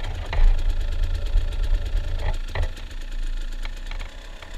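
KTM enduro motorcycle engine idling with a steady low rumble, with a couple of sharp clicks a little over two seconds in.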